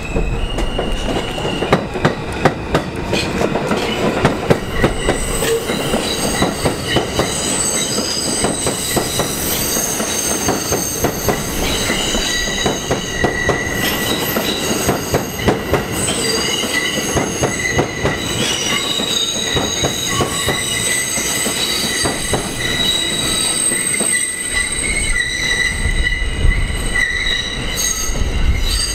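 New York City subway train's steel wheels squealing round a sharp curve: several high, shifting screeching tones over rapid clicking from the wheels and rails. A low rumble builds near the end as a train comes closer.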